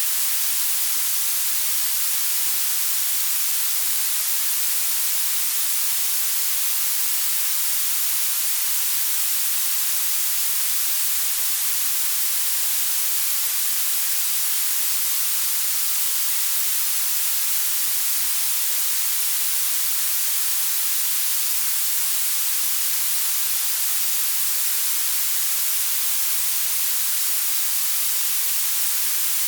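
Blue noise: a steady, unchanging hiss whose energy climbs toward the highest pitches, with almost nothing in the bass.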